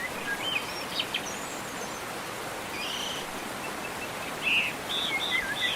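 Several birds chirping and trilling in short bursts over a steady background hiss, with a busier run of chirps near the end.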